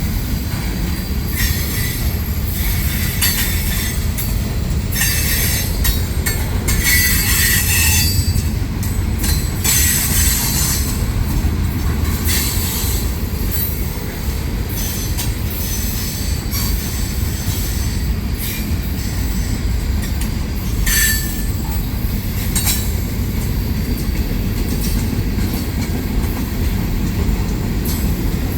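Freight train rolling past: a steady rumble of wheels on rail, broken by repeated high wheel squeals and screeches. These come thickest in the first ten seconds and once more about 21 seconds in.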